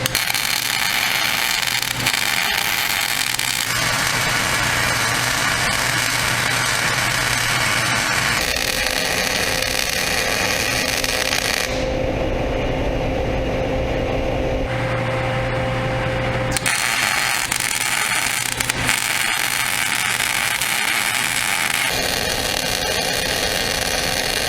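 Electric arc welding on the steel of a plow moldboard: a steady crackling hiss over a low electrical hum. The sound changes abruptly several times as one weld run gives way to another.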